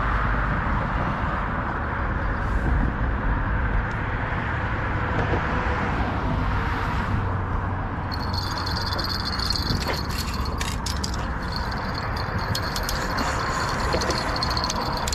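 Steady low rumble of traffic on the bridge. From about halfway through comes the high whirring and clicking of a spinning reel being cranked as a porgy is reeled in.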